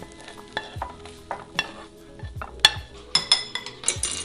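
Metal spoon scraping and clinking against a bowl as fried rice is scooped in and packed down, a string of irregular scrapes and clicks that gets louder and busier near the end.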